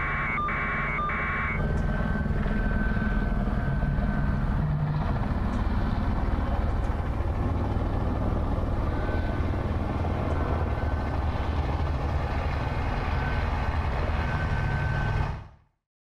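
Steady low rumble of a heavy vehicle engine running at the scene, with a few short electronic beeps about a second in. The sound fades out near the end.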